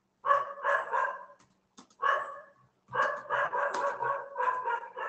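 Dogs barking in loud bursts, three times, the last run longer: a neighbour's dog and street dogs barking at each other.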